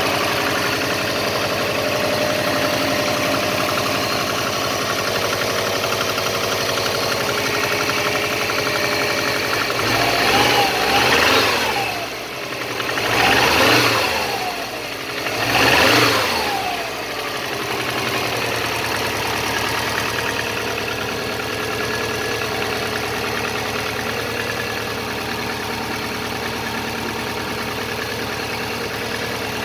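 Subaru EJ205 turbo flat-four idling, still cold, with three rev blips about ten seconds in, each rising and falling, before it settles back to idle. The owner says this engine knocks when cold and the knock goes away once warm.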